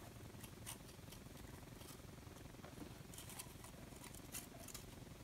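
Faint scattered clicks and scratches of hands untangling string from a telescoping-tube prototype mechanism.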